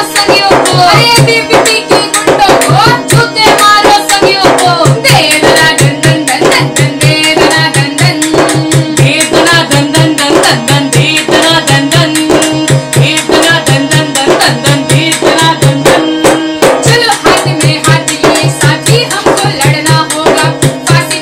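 Women singing a Hindi song to harmonium and a hand-beaten double-headed drum. The drum keeps a steady beat under the harmonium's held chords.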